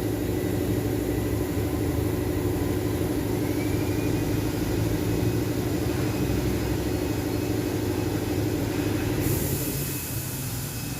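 Steady mechanical hum, like an idling engine, with a constant low drone. About nine seconds in the hum's tones fade and a high hiss starts.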